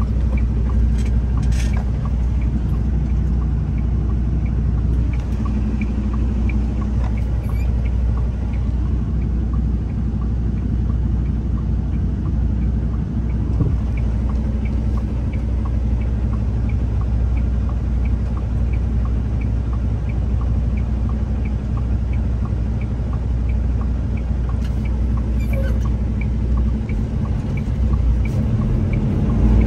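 Semi truck's diesel engine running while driving, heard from inside the cab as a steady low rumble. A faint, regular light ticking runs along with it.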